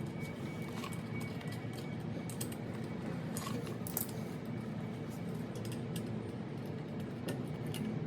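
Background music with scattered small metallic clicks and clinks from parts and hand tools being handled during engine reassembly.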